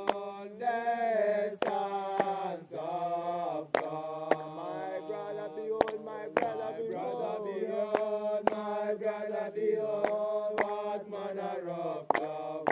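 Bobo Shanti Rastafari congregation chanting in chorus, several voices gliding together over a low steady drone. Sharp strikes fall in pairs about every two seconds, keeping the beat.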